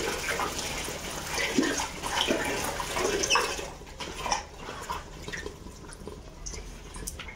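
Artificial flowers being swished and dipped in a plastic bucket of water, splashing for the first few seconds, then quieter drips of water falling from them as they are lifted out.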